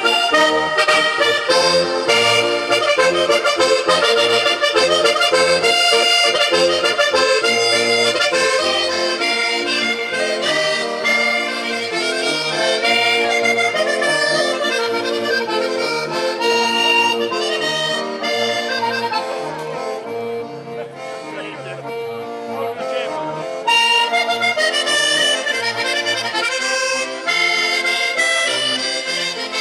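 Sardinian organetto (diatonic button accordion) and piano accordion playing a ballu tundu dance tune, a running melody over a steady stepping bass. The music dips in level for a few seconds about two-thirds through, then comes back full.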